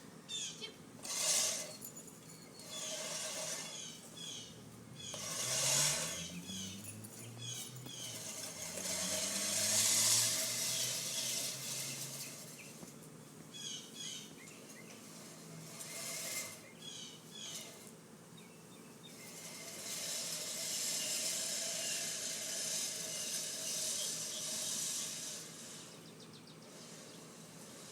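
Small birds chirping in repeated short phrases over a steady outdoor rushing noise. An engine's hum rises in pitch about five seconds in and fades out after about twelve seconds.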